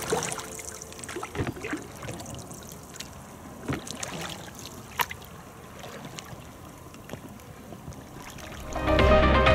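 Oars dipping and splashing as an inflatable rowing boat is rowed along a river, with water trickling and a few sharp clicks. Loud music comes in near the end.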